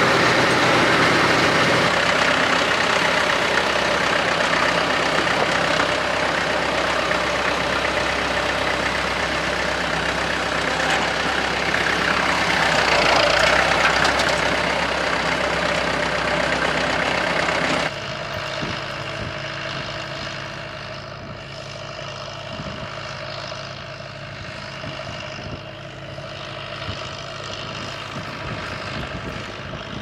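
McCormick International B-276 tractor's four-cylinder diesel engine running close by, briefly louder about 13 seconds in. After a sudden cut about 18 seconds in, it is heard fainter from a distance as it pulls the two-furrow plough across the field.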